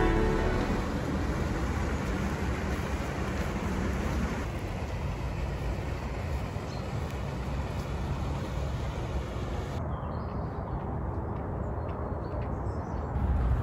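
Steady outdoor background noise, a low rumble with hiss, changing in character at each cut.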